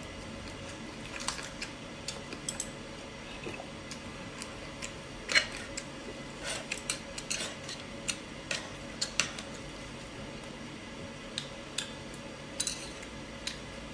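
Metal chopsticks clicking and clinking against a grill grate and small metal sauce dishes, in scattered short taps with one louder clink about five seconds in.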